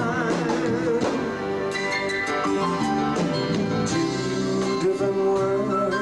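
Male singer and live band performing a slow ballad. The voice holds a long note with vibrato near the start over sustained band chords.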